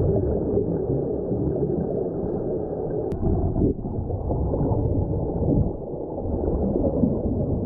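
Muffled underwater rumble and gurgling of air bubbles streaming from a SeaTrek diving helmet's air supply, heard through a submerged camera.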